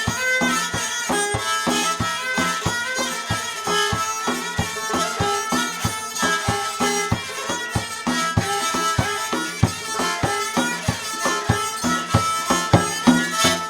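Live Central Asian traditional instrumental music with a fast, even run of sharp note attacks, stopping abruptly near the end as a piece ends.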